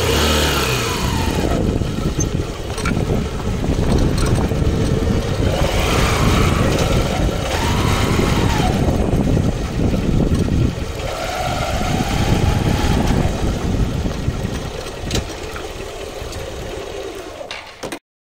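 Motorcycle engine running on the move, its pitch rising and falling with speed, under heavy wind rumble on the microphone. Cuts off abruptly near the end.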